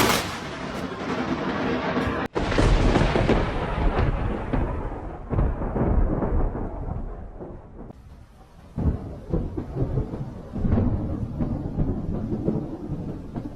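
Thunder rumbling. A loud peal about two seconds in rolls on and fades over several seconds, and the rumble swells again about nine and eleven seconds in.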